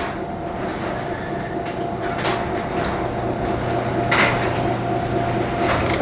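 Chamberlain belt-drive garage door opener running steadily as it lowers a sectional garage door to its newly set lower limit. A few clanks from the door and its rollers in the tracks come through, about two seconds in, about four seconds in and again near the end.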